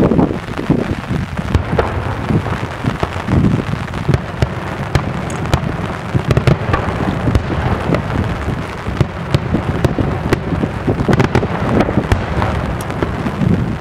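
Daytime fireworks display: aerial shells and salutes bursting in a dense run of overlapping bangs over a continuous low rumble.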